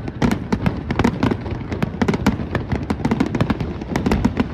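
Aerial fireworks going off in a rapid volley: dense crackling with many sharp pops a second over low booms.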